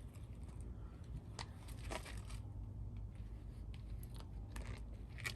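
Faint crinkling and a few scattered clicks of plastic window rain guards being handled, over a low steady hum.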